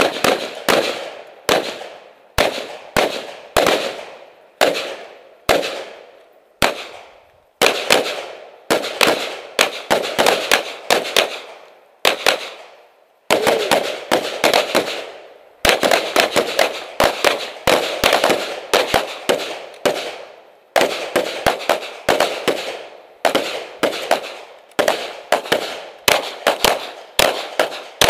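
Firearms gunfire on a shooting range: dozens of sharp shots in quick, irregular strings, each followed by a short echoing tail, typical of pistol and carbine drills fired in rapid succession.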